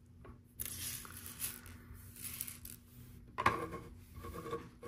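Small plastic LEGO round tiles being slid and shuffled on a tabletop, with light clicking. About three and a half seconds in there is a sharper plastic knock as the LEGO baseplate section is set down.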